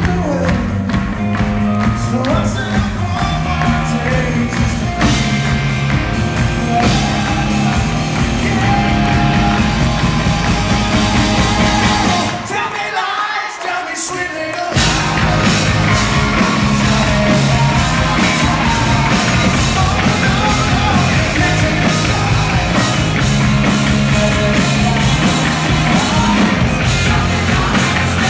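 Live rock band with a male lead singer, loud and full, recorded from the audience. Just before halfway the drums and bass drop out for about two seconds, then the full band comes back in.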